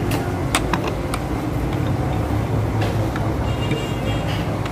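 A steady low mechanical hum, with a few light clicks and taps in the first second or so as a fuel filter cartridge is fitted by hand against its metal filter head.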